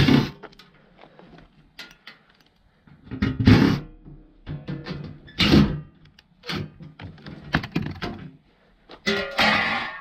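Makita cordless impact driver running in several short bursts, backing screws out of a washing machine's sheet-metal back panel. Knocks as the panel comes free.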